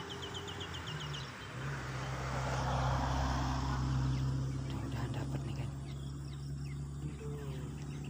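A motor vehicle passing on the road above: a low, steady rumble that builds to its loudest about three to four seconds in and then slowly fades. A quick run of high, even ticks sounds in the first second.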